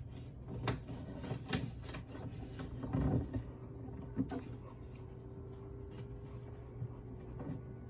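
Sheet of origami paper rustling and crinkling as it is folded and pressed flat by hand, with a few sharp crinkles in the first half, then quieter handling.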